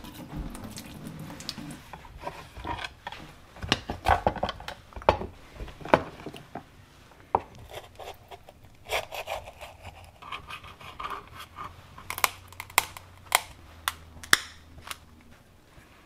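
A knife shucking a horseneck clam on a wooden cutting board: irregular scrapes and clicks of blade against shell, with knocks of shell and knife on the wood. A run of sharper clicks comes about three quarters of the way in.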